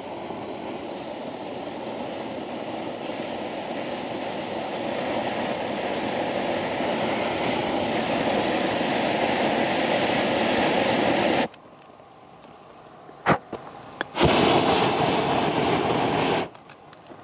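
3D-printed handheld flame gun shooting a jet of fire: a steady rushing hiss of flame for about eleven seconds that cuts off suddenly. Two sharp clicks follow, then a second, shorter burst of about two seconds that also stops abruptly.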